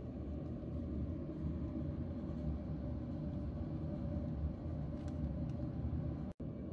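Remko diesel space heater's fan blowing hot air out of a duct into the room: a steady low rush and rumble with a faint even hum.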